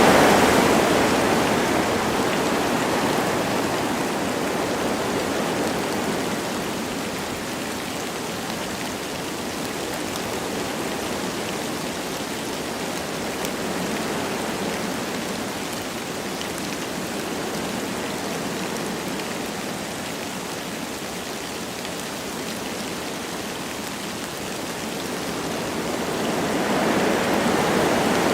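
Wind blowing through forest trees with light rain falling, a steady rushing noise that eases off through the middle and swells again near the end.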